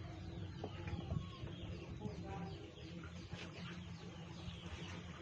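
Chickens clucking over a steady low hum.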